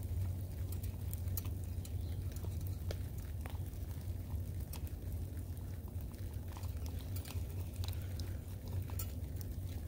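A spoon scraping thick muffin batter out of a cup into foil pans: soft wet scrapes and scattered faint clicks, over a steady low rumble.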